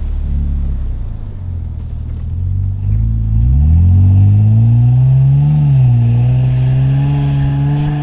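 Nissan Pathfinder's engine revving under load as it pushes through deep snow, the pitch climbing from about three seconds in, dipping briefly near the middle and then holding high.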